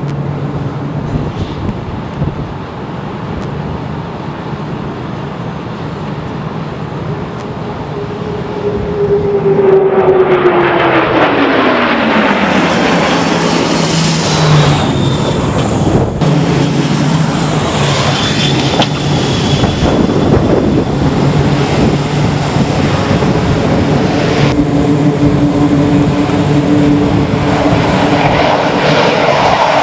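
A C-2 Greyhound's twin turboprop engines grow loud as it comes in low over the carrier deck to land, the engine note sliding down in pitch as it passes. Near the end, the engine noise of an F/A-18 jet on final approach builds.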